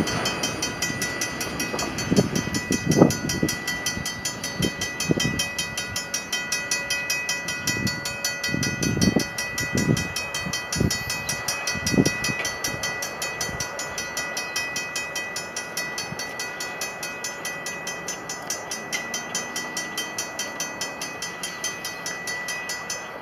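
Freight train moving away down the line, its wheels thumping over rail joints, the thumps thinning out and fading after about twelve seconds. Under it runs a steady high ringing tone with fast, even ticking, which cuts off suddenly at the end.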